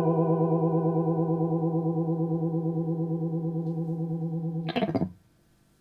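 Electric guitar chord, likely a Fender Jaguar, ringing out through an Electro-Harmonix Small Clone chorus pedal, its pitch wavering steadily up and down as it slowly fades. Near the end there is a short scrape, and then the sound stops.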